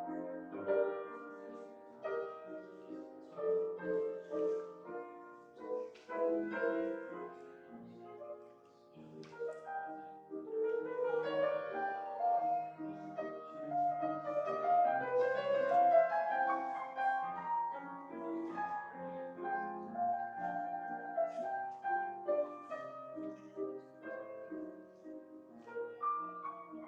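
Piano playing a slow, classical-style piece, with held chords under a melody line.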